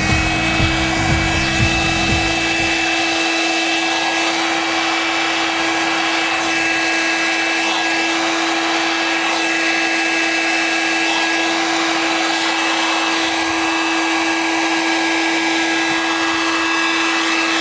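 An electric power tool's motor running steadily at full speed, giving a constant high whine over a steady noisy hiss.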